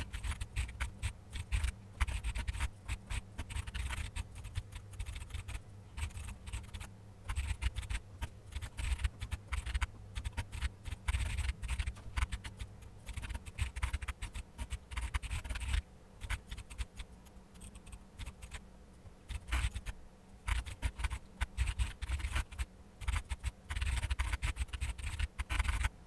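Computer keyboard being typed on, a fast run of key clicks that eases off briefly a couple of times.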